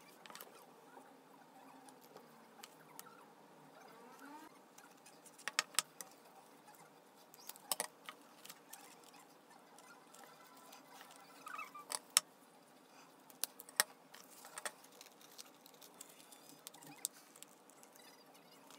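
Wooden popsicle sticks being handled and fitted into a small glued stick box, making light taps and scratches with a few sharper clicks: a quick cluster about six seconds in and single ones around eight, twelve and fourteen seconds.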